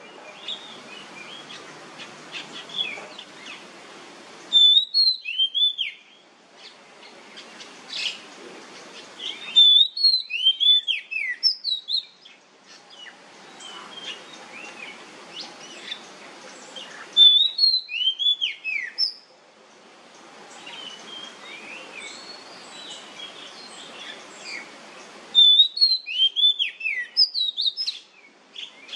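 Oriental magpie-robin (kacer) singing in its loud 'nyemplong' style: four bursts of rapid, sliding whistled notes, with softer chirps over a steady hiss in between.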